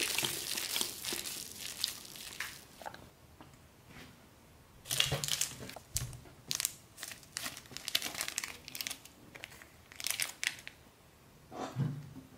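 Small plastic sauce sachets crinkling as they are handled, in a string of short crackly bursts. A louder stretch fades over the first couple of seconds, and another run of crinkles comes about halfway through.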